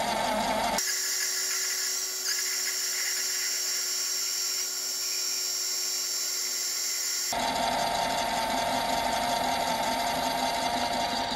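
Mini metal lathe running, its cutting tool taking a facing cut across the end of a steel billet, with a steady mechanical whine. About a second in, the sound turns thinner and higher-pitched. It returns to the fuller running sound around seven seconds in.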